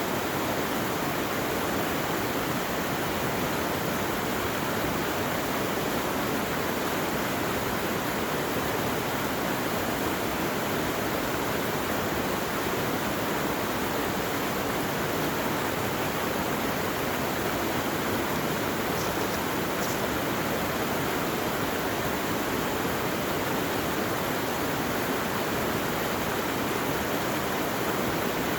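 Fast-running water rushing steadily, a mountain stream or small waterfall, with no change in flow.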